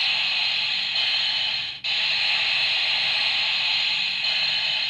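Steady steam-like hiss, with a brief break about two seconds in, cutting off suddenly near the end.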